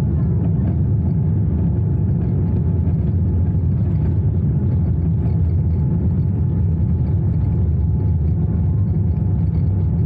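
Boeing 787-9 Dreamliner cabin noise: a steady low rumble of the engines and airflow heard from inside the passenger cabin.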